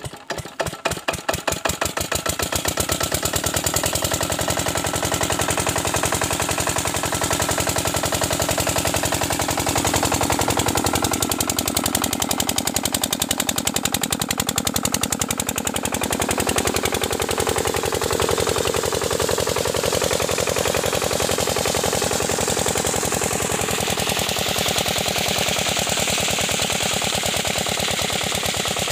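Kirloskar single-cylinder diesel pumpset engine catching on a hand start, its firing quickening over the first couple of seconds and then settling into a steady, rapid, even knock. Water from the pump's outlet pipe rushes underneath, growing louder near the end.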